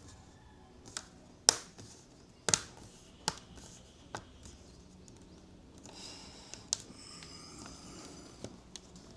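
Plastic clips of a laptop screen bezel snapping into place as it is pressed onto the lid: a run of sharp clicks, roughly a second apart.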